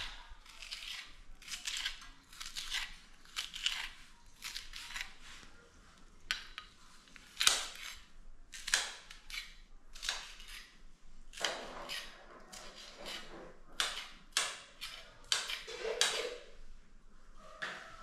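Kitchen knife chopping a green pepper: irregular sharp knocks of the blade coming down, roughly one or two a second.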